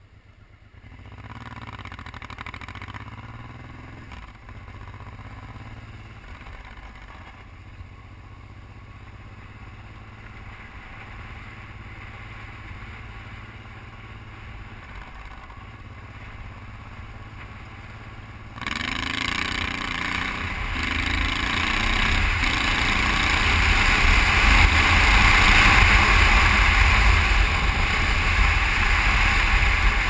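Honda XRV750 Africa Twin V-twin engine pulling away about a second in, then running steadily at moderate speed on a gravel road. About two-thirds of the way through, a loud rush of wind on the microphone sets in suddenly and grows as the bike speeds up, mixing with the engine.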